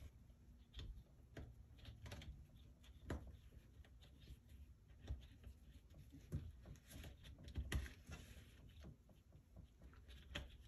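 Faint, irregular soft ticks and rustles of twine being wrapped around small nails in a wooden board, with hands brushing the wood.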